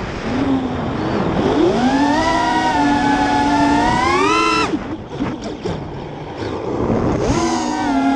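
FPV miniquad's brushless motors whining over rushing air: the pitch climbs as the throttle is punched about two seconds in, holds and rises again. It drops away suddenly halfway through, leaving wind noise, then climbs again near the end.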